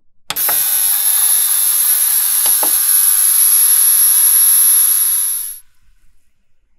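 Ultrasonic cleaner running with a watch bracelet and parts in its fluid bath: a loud, steady hiss with a piercing high whine, starting abruptly and cutting off suddenly about five and a half seconds in.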